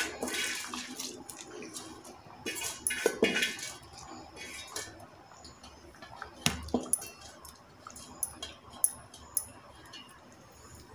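Raw basmati rice poured from a steel tumbler into a pressure cooker of boiling water and masala: two rushing, hissing pours in the first few seconds. A single knock follows about six and a half seconds in, then scattered faint pops from the boiling liquid.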